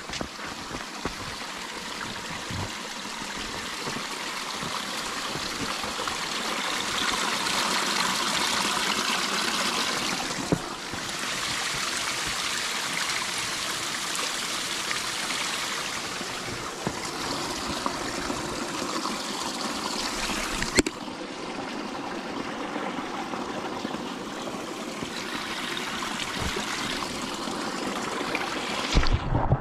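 Small mountain stream running over rocks, a steady rush and trickle of water, with a short knock near the end.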